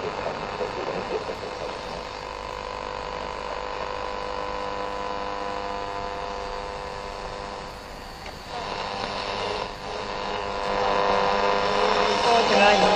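Medium-wave AM radio being tuned up the band, giving a steady buzzing hum over static while between stations. The buzz breaks up about eight seconds in, and a station's audio starts to come through near the end.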